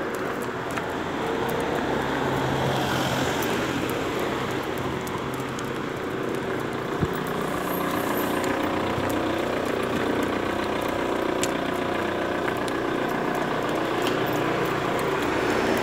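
Street traffic noise: a motor vehicle's engine running steadily close by, with faint scattered ticks.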